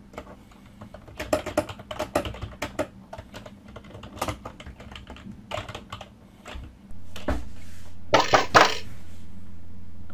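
Computer keyboard typing: quick runs of key clicks that stop about seven seconds in. A steady low hum then comes on, and two short noisy bursts follow near the end.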